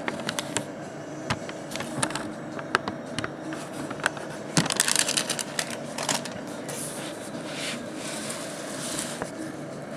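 Olympus Pen FT film camera being worked by hand: a series of sharp mechanical clicks, a denser clatter about halfway through, then softer ratcheting rasps near the end, over a steady low hum.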